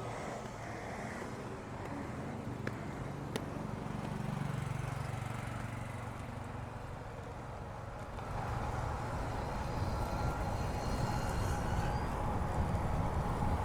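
Road bike riding along a paved path: a steady rush of tyre and wind noise, with a couple of sharp clicks about three seconds in, growing a little louder after about eight seconds.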